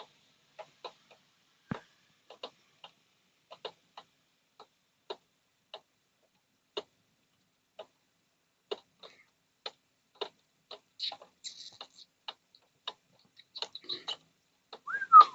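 Irregular faint ticks and clicks, about one or two a second, coming more often near the end, with a brief chirp-like glide just before it ends.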